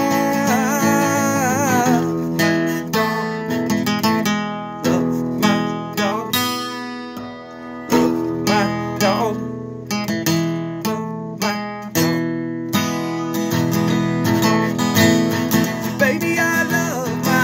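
Acoustic guitar strummed in a steady rhythm, playing an instrumental passage, with a man's voice singing a few notes near the start and again near the end.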